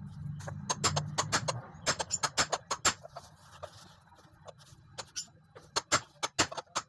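A hammer tapping a 30 mm socket to drive a new bearing into its seat in place of a press: a quick run of sharp metallic knocks in the first few seconds, then slower, spaced taps. The bearing is being replaced to cure the engine's rough 'snoring' noise.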